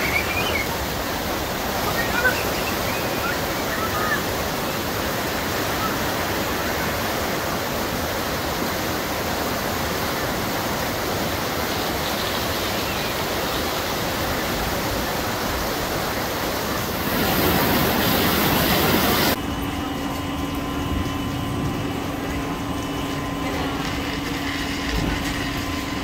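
White water rushing steadily down the concrete channel of a river rapids ride, swelling louder for a couple of seconds about two-thirds of the way through. It cuts off suddenly to a quieter steady low mechanical hum.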